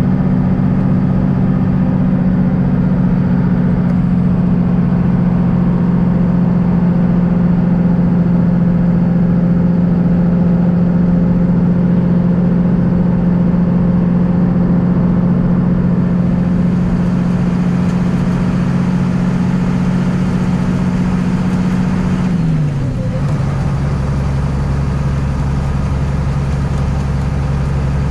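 Bus engine drone heard from inside the cab at a steady cruising speed, over the noise of tyres on a wet road. About 22 seconds in, the engine note drops lower and a deeper rumble comes in.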